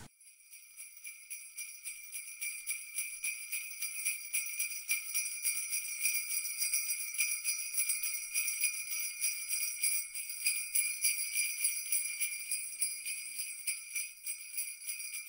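Jingle bells shaken in a rapid, even rhythm, fading in over the first few seconds. It is a steady, bright jingling with nothing else audible beneath it.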